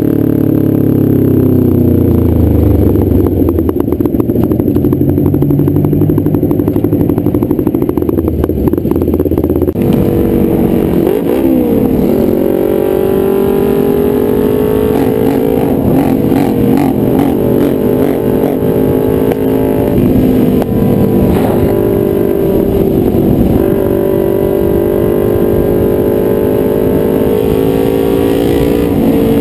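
Kawasaki Ninja 250R's parallel-twin engine running loud through a K&N filter and a DanMoto XG-1 exhaust that is basically straight piped, riding at road speed. The pitch drops in the first couple of seconds, the sound changes abruptly about ten seconds in, and afterwards the pitch rises and falls gently with the throttle.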